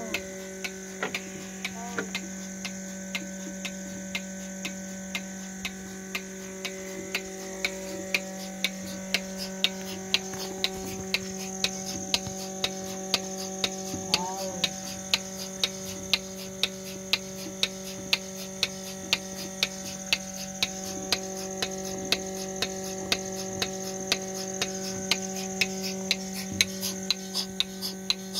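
Portable milking machine at work: the vacuum pump's electric motor runs with a steady hum while the pulsator clicks regularly, about twice a second, as it cycles the teat-cup liners during milking.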